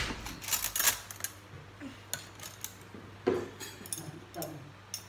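Metal spoons clinking against ceramic bowls and plates while food is being served: a quick run of clinks in the first second, a few more around two seconds in, and a duller knock a little after three seconds.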